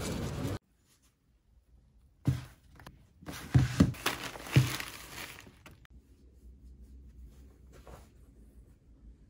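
Bread packages being handled on a table. There is a single thump about two seconds in, then a cluster of thumps with paper and plastic rustling, which tapers to faint rustling.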